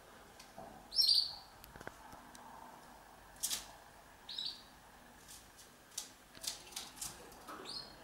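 Canary giving three short chirps a few seconds apart, the first, about a second in, the loudest, with light taps and wing rustles from the birds moving about the wire cage.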